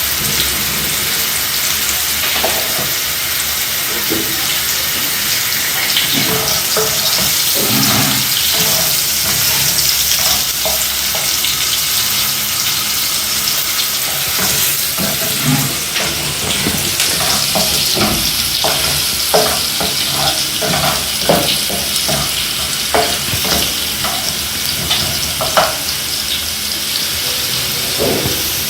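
Onions frying in hot oil in a pan with a steady sizzle, and the light knocks of a spoon stirring against the pan, coming more often in the second half.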